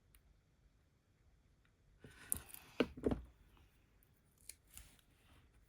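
Small craft scissors snipping, a few quick cuts about two to three seconds in, followed by a couple of faint clicks near the end.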